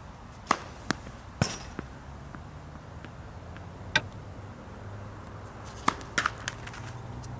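Tennis balls being served on a hard court: a sharp pop of the racket strike about half a second in, then quick knocks of the ball bouncing and striking, with a few more sharp ball knocks around four seconds and again near six seconds.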